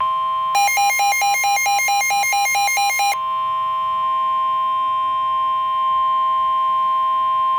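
NOAA Weather Radio 1050 Hz warning alert tone: one steady, loud tone that signals a severe thunderstorm warning is about to be read. For the first three seconds a second, rapid beeping pattern of about four beeps a second sounds over it.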